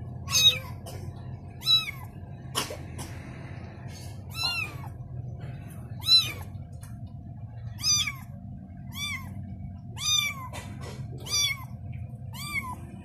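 Kitten mewing over and over: about ten short, high-pitched mews, roughly one a second, each rising and then falling in pitch.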